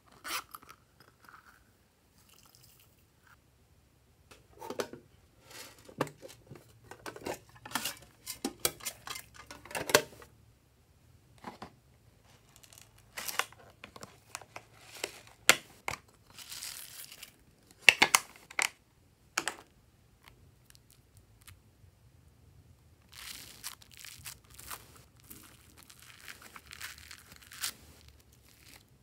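Small plastic toys and a zippered purse being handled: scattered sharp clicks, taps and rustles. Near the end comes a steady crackly crunching as foam-bead slime is pressed down by hand.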